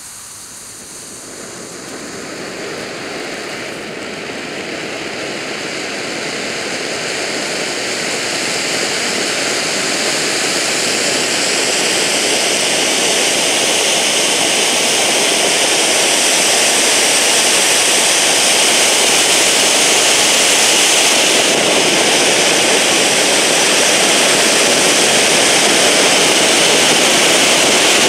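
Magma Monster silver fireworks fountain, a 6-metre ground volcano, hissing steadily as it sprays sparks. It swells over about the first ten seconds and then holds steady at full force.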